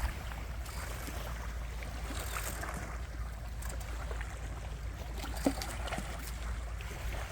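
Small waves lapping and trickling around beached sailboats, with a steady low rumble underneath and a few faint ticks, one small knock about five and a half seconds in.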